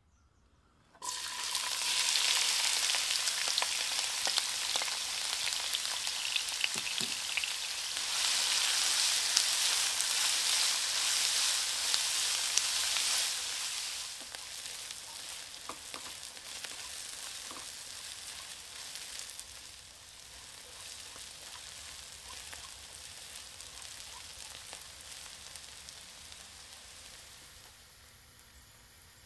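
Diced onion dropped into hot oil in a stainless steel wok, sizzling loudly from about a second in and stirred with a silicone spatula. The sizzle drops a step about halfway through and is fainter near the end.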